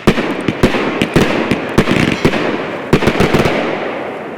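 Elite Fireworks 26-shot Stealthy Bot cake firing in quick succession. About a dozen sharp bangs come a few tenths of a second apart, over a continuous hiss of shower and strobe effects. The hiss dies down near the end.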